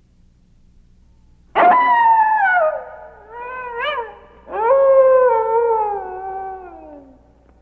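Animal howling in three drawn-out calls starting about a second and a half in. The first starts sharply and slides down in pitch, the second is short and wavers upward, and the third is a long howl that falls slowly.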